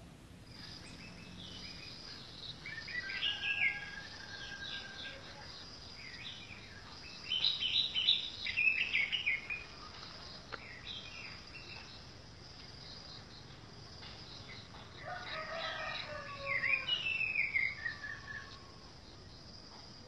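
Orange-headed thrush singing: three bouts of rapid, varied warbling phrases, about three, seven and fifteen seconds in, over a steady high-pitched background band.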